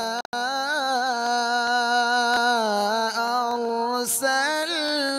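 A male qari's solo voice reciting the Quran in a melodic, ornamented style. He holds one long drawn-out phrase whose pitch wavers up and down through melismatic turns, with a brief break just after the start.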